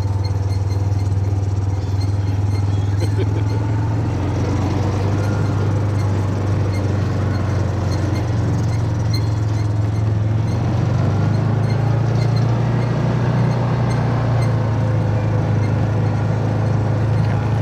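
Steady low drone and rumble of a moving vehicle, running evenly throughout.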